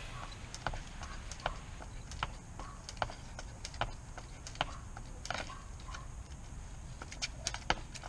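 Jump rope skipping on a concrete patio: a short, sharp tap about every three-quarters of a second as the rope strikes the ground, with a few quicker taps near the end.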